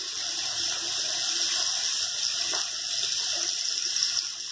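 Pomfret slices sizzling in hot oil on a flat iron tawa: a steady frying hiss with a single pop a little past halfway.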